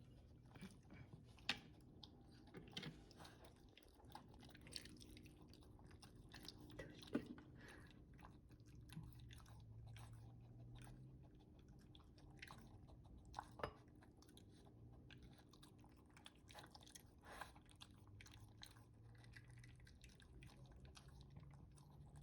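Faint sound of an old dog chewing and eating slowly, with scattered soft clicks and a few sharper crunches. He eats slowly because medicine is mixed into his food.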